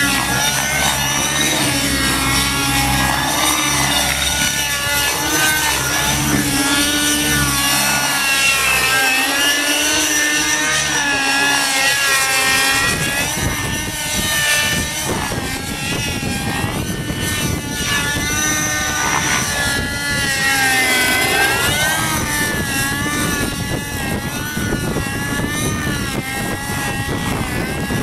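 Radio-controlled TZ50-V2 helicopter with torque-tube tail drive in flight, its whine rising and falling in pitch over and over as it manoeuvres.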